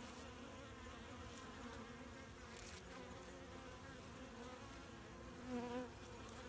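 Honeybees buzzing in a dense crowd at a hive entrance during a robbing attack, with foreign bees fighting to get in. The hum is steady, and one bee buzzes louder for a moment about five and a half seconds in.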